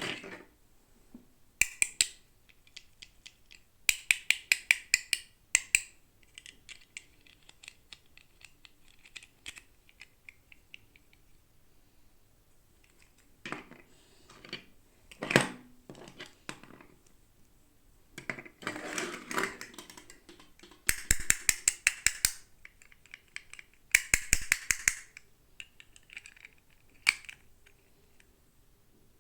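Plastic toy packaging handled close to the microphone: bursts of rapid clicking and crackling with short pauses between.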